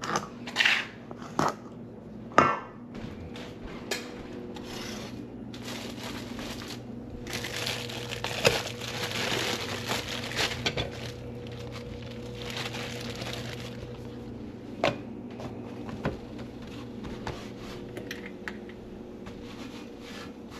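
Kitchen prep sounds: utensils and dishes clicking and knocking now and then, with a few seconds of rustling or crinkling near the middle, over a steady low hum.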